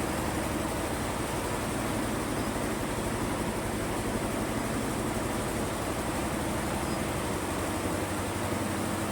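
Industrial embroidery machine running, its needles stitching in a fast, even rhythm over a steady machine hum.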